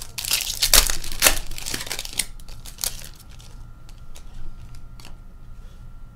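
Hockey card pack wrappers crinkling and tearing as packs are opened, loudest in the first two seconds, followed by a few light clicks and rustles of cards being handled.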